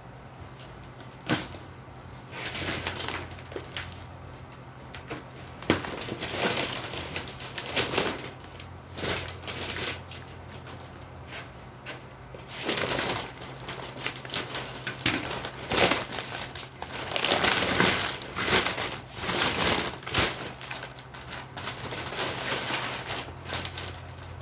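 Brown kraft paper and plastic wrapping crinkling and rustling in irregular bursts as a freshly chromed bumper is unwrapped, with a few sharp clicks.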